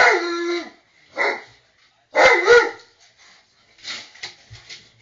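Husky-type dogs giving a string of pitched howl-barks: a loud call that falls in pitch, a short one, a longer wavering one, then fainter short calls near the end. It is the sad howling of dogs missing an absent member of their pack.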